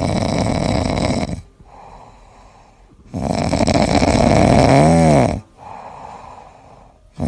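Loud snoring: two long, rough snores about three seconds apart, the second ending in a short pitched squeak that bends up and back down.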